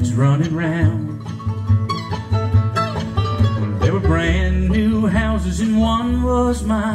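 Background music: a country song with banjo and guitar playing.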